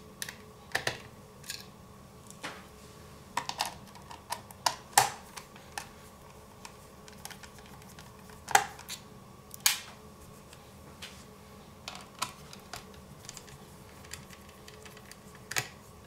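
Small screwdriver undoing the screws of a laptop's hard-drive bracket: irregular sharp clicks and light scrapes of the bit on the metal screws and bracket, a few louder clicks among them.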